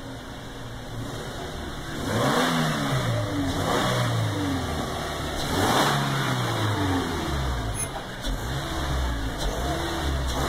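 Police patrol SUVs pulling out and accelerating, their engines revving up and down several times from about two seconds in, with a few short rushes of noise as they pass close by.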